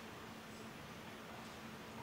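A quiet pause in spoken narration: faint steady hiss with a low hum underneath, the room tone of the voice recording.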